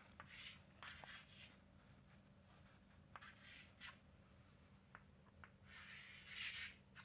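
Chalk scratching on a chalkboard as a line drawing is sketched: faint strokes, several short ones and a longer one about six seconds in, over a low steady hum.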